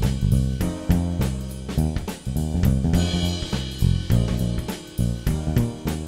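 Background music with a drum kit keeping a steady beat over low bass notes.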